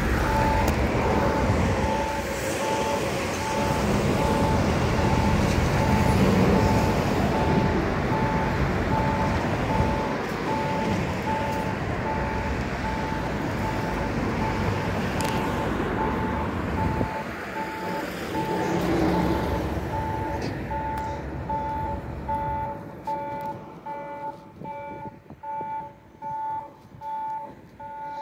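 Japanese railway level-crossing warning bell ringing, an evenly repeating electronic ding, roughly one and a half to two a second, signalling an approaching train. A steady rumble under it fades out about 22 seconds in, leaving the bell ringing on its own.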